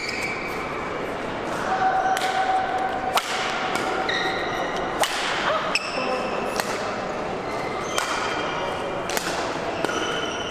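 Badminton rally: the shuttlecock is struck sharply about once every second or so, and court shoes squeak briefly on the floor between strokes.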